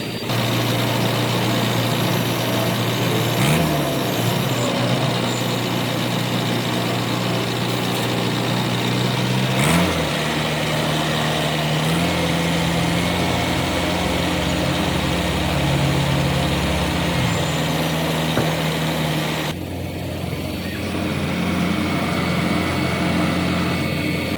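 Engines of heavy road-construction machinery running steadily, with the pitch rising briefly twice as if revved. The sound changes abruptly twice, as separate clips are cut together.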